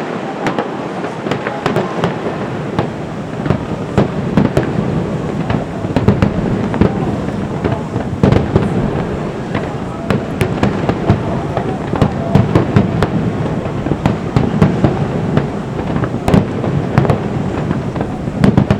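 Aerial fireworks bursting in quick succession: many sharp bangs and crackles, several a second, over a continuous rumbling din.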